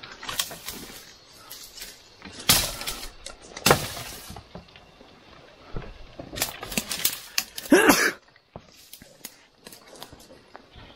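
Irregular crackling and snapping of brush and twigs as people push through dense undergrowth, with a brief voice sound near 8 seconds in.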